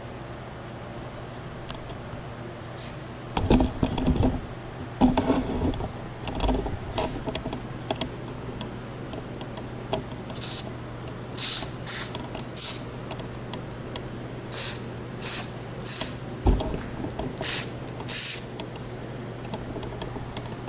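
Aerosol can of white lithium grease spraying in short hisses, about nine quick bursts in the second half, as the garage door rollers are greased. A few knocks and clatter of handling come in the first half, over a steady low hum.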